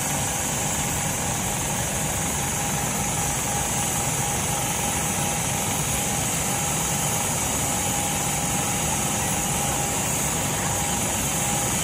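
Steady mechanical drone with a constant mid-pitched whine running through it, unchanging throughout.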